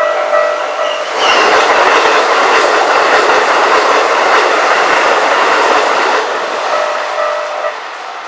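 Level-crossing warning bell pulsing about twice a second, then about a second in a Keikyu Main Line train passes through the crossing at high speed, its loud running noise lasting about five seconds. The bell comes through again faintly as the train goes by.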